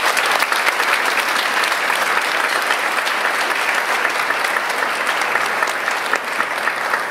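Audience applauding: many people clapping together in a dense, steady patter that eases slightly near the end.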